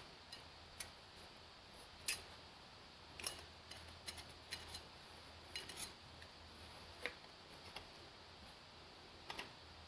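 Light, irregular metallic clicks and taps from hand work on a diesel engine's rear main seal wear ring, a few of them sharper than the rest.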